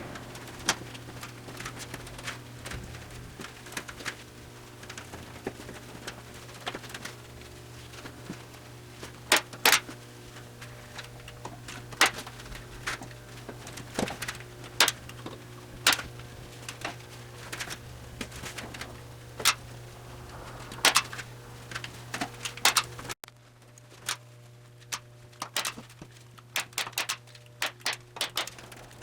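Irregular sharp clicks and knocks, loose and uneven, over a steady low electrical hum; the background noise drops suddenly about two-thirds of the way through.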